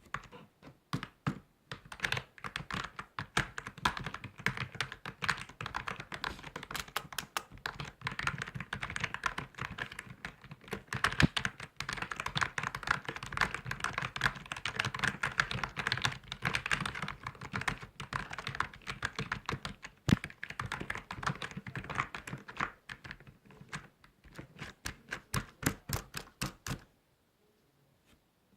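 Typing on a computer keyboard: rapid, continuous key clicks with a few louder key strikes, pausing briefly near the end.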